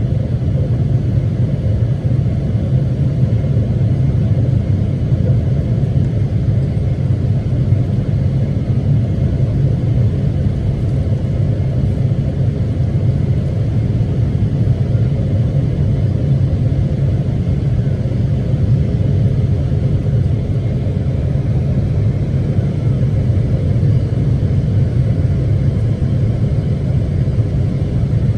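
Steady low rumble of a Boeing 777-300ER airliner, holding an even level with no change in pitch.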